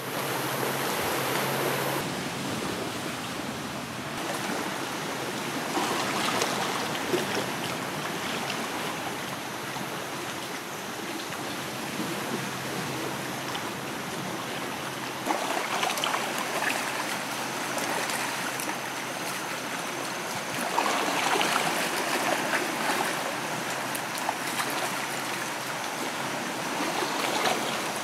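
Shallow water running over rocks, a steady rushing noise that swells at times.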